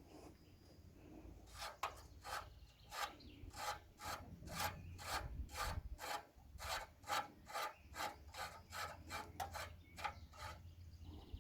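Rhythmic back-and-forth scraping strokes by hand, about two a second, starting a couple of seconds in and stopping near the end.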